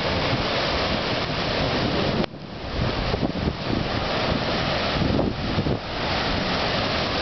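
Storm surf crashing and churning, with strong tropical-storm wind gusting across the microphone. About two seconds in, the noise drops sharply for a moment, then builds back up.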